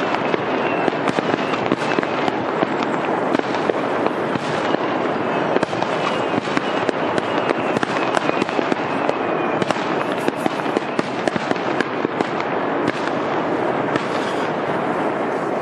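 Fireworks going off in a dense, continuous crackle of rapid pops and cracks.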